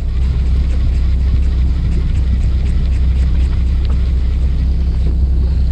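Steady low rumble of wind buffeting the microphone on an open boat.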